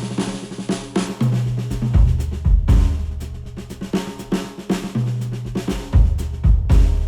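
Instrumental music with a busy drum kit (snare, kick and cymbals) over sustained bass notes, played back through HIFIMAN planar-magnetic headphones and picked up by microphones at the earcups.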